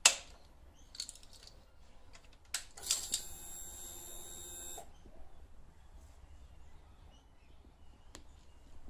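Ignition key clicking on in a Honda CBR650F, then a steady electric whine for about two seconds that cuts off abruptly: the fuel pump priming before the engine is started. A few light clicks of handling follow.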